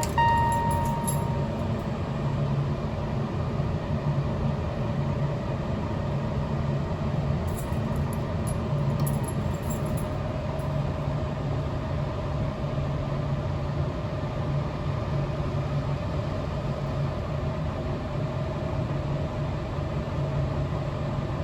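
Steady low mechanical hum with an uneven throb; a steady high tone stops about a second in.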